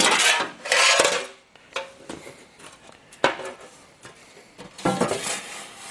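Sheet-steel panels scraping and clattering on a steel workbench as they are slid and set down: loud rattling in the first second, a sharp knock about three seconds in, and another scrape near the end.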